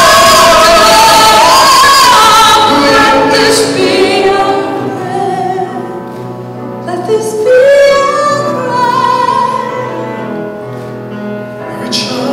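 A woman and a man singing a ballad duet live through microphones. A loud, held high passage runs for the first three seconds, then the singing turns softer.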